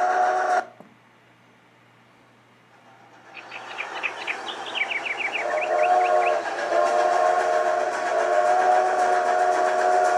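Steam train sounds: a short whistle toot at the start, then chuffing that builds from about three seconds in with a flurry of quick rising chirps. From about halfway through, a long chime whistle is held over the steady chuffing.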